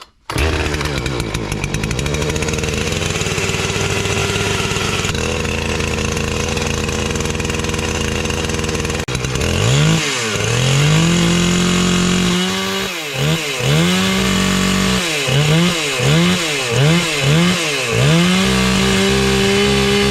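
Husqvarna 460 Rancher two-stroke chainsaw catching on a cold start and running on choke at a steady high idle for about nine seconds. It is then revved: two long full-throttle holds, a quick series of blips, and another long hold near the end.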